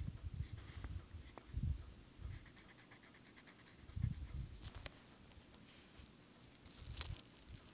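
Pencil scratching on sketchbook paper in short, quick strokes, with a few soft low thumps.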